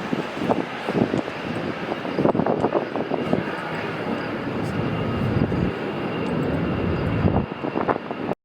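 Jet engine roar of an Airbus A320-214's CFM56-5B turbofans on takeoff, a loud rumbling noise with a faint steady high whine above it. The sound cuts off abruptly just before the end.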